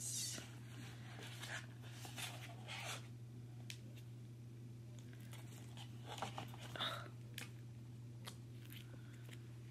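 Faint crinkling and tearing of a paper packet as a nose pore strip is taken out. It comes in short scattered rustles, most in the first few seconds and again about six seconds in, over a steady low hum.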